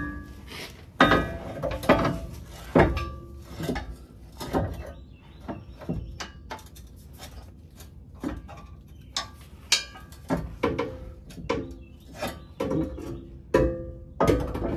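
Heavy steel transmission crossmember being worked into place against a Jeep frame: irregular metal clanks and knocks, some ringing briefly, as it shifts and a bolt is fed in.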